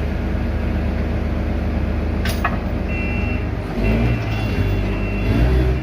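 An 18-inch two-roll rubber mill (hot mill) running with a steady low machine hum. There is a sharp click about two seconds in, and the low rumble surges louder twice in the second half.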